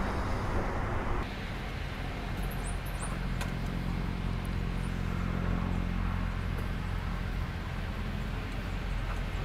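Steady outdoor urban background: a low rumble with a steady hum, like distant traffic and machinery. The sound shifts slightly about a second in.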